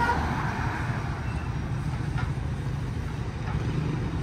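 Street traffic noise, carried by a steady low motor-vehicle engine hum.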